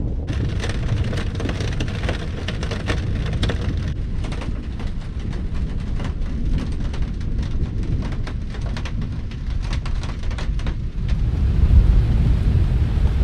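Heavy rain pattering densely, with thunder rumbling low underneath; the thunder swells near the end.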